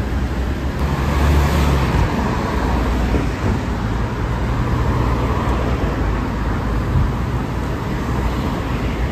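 Steady city street traffic noise from cars on the road alongside, with a deep rumble that swells as a vehicle passes about a second in.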